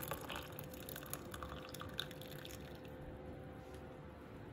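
Boiled cumin water being poured from a pan into a mug: a faint trickle and drips that thin out after about two and a half seconds, over a faint steady hum.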